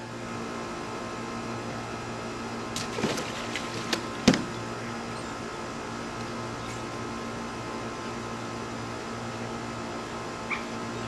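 A steady mechanical hum, with a few sharp knocks about three to four seconds in, the last and loudest just past four seconds, and a faint click near the end.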